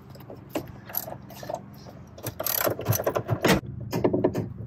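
Metal hand tool clicking and clinking against fittings as screws are worked inside a camper's electrical compartment. Scattered clicks at first, then a faster, louder run of clicks and clatter from about halfway through.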